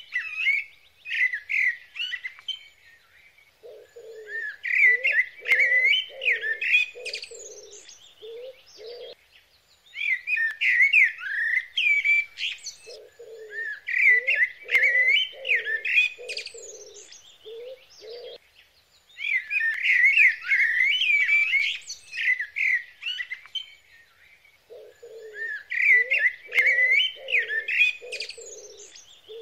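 Birds chirping and twittering, with a lower call of about eight quick notes coming in roughly every ten seconds.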